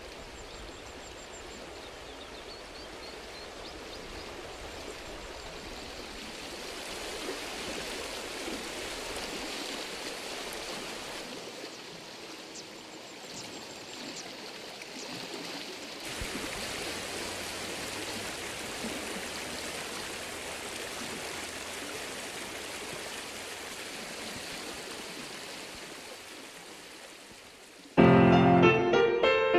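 Steady rush of river water, with a few faint high chirps in the first seconds. Piano music comes in suddenly near the end.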